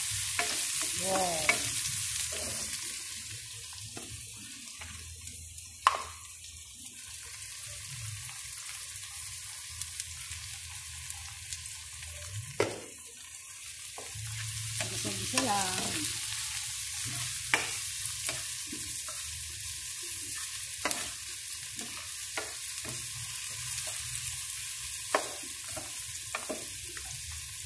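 Sliced onions and garlic sizzling as they sauté in oil in a nonstick pan, with a spatula scraping and knocking against the pan every few seconds.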